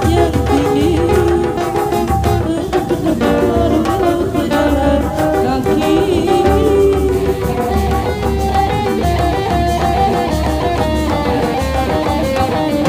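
Music with a melodic lead over drums and a steady low beat, with some singing.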